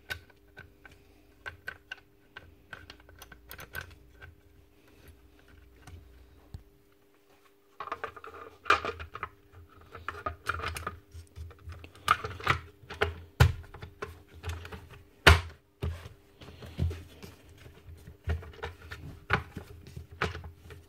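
Plastic and metal parts of a Makita DBN600 cordless nail gun clicking and knocking as its housing and cylinder are fitted back together by hand, with a faint steady hum behind. The clicks are light and scattered at first, then from about eight seconds in come a denser run of louder knocks and taps as the closed-up tool is handled on the bench.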